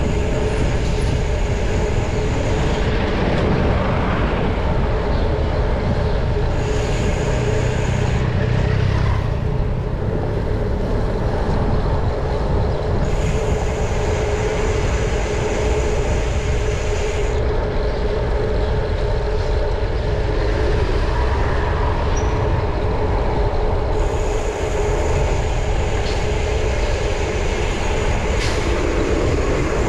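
Steady road, traffic and wind noise heard while riding a bicycle through city streets: a continuous low rumble with a steady tone, and a higher hiss that comes and goes every few seconds.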